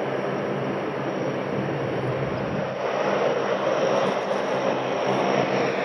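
Four-engine turboprop of a NOAA WP-3D Orion, its Allison T56 engines running as it taxis: a steady propeller drone with even low tones, growing a little louder about three seconds in.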